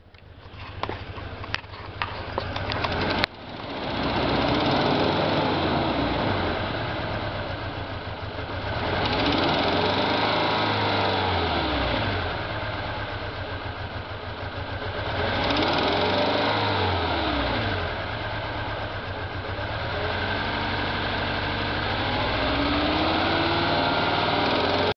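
Toyota 2TR-FE 2.7-litre four-cylinder engine running and revved up and back down twice, with the revs rising again near the end, after a few sharp clicks at the start. It carries the ticking that comes up on revving after a head gasket change, which the owner fears is a cam timing or misfire problem.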